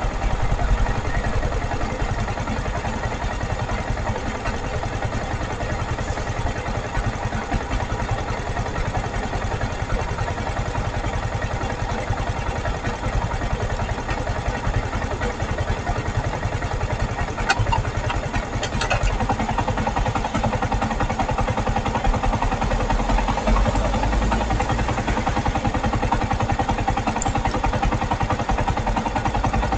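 Motorcycle engine idling steadily while stopped, picked up by the dashcam's microphone, with a few brief clicks about two-thirds of the way through.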